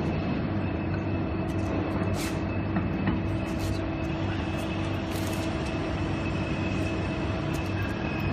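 Steady workshop machinery hum and rumble, with a few short metallic clicks as shims and steel parts are handled on a slurry pump bearing housing.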